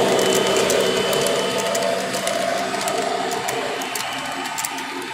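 Model freight cars rolling past on three-rail O-gauge track: a steady rolling rumble with quick, irregular clicks from the wheels over the rail joints, fading as the end of the train goes by.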